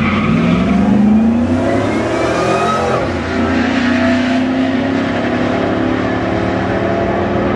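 2004 Ford Lightning's supercharged V8 through an aftermarket exhaust, accelerating hard on a drag run. The engine pitch climbs, drops at a gear shift about three seconds in, then climbs again.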